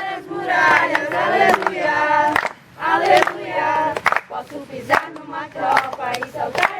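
A group of young people singing together in many overlapping voices, with hand claps.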